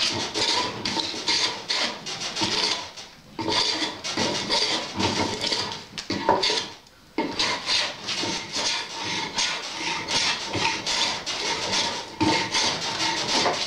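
Hand plane shaving a split firewood log, repeated rasping strokes of the blade cutting across the wood to flatten its face, with short breaks between runs of strokes, briefly around 3 seconds in and again around 7 seconds in.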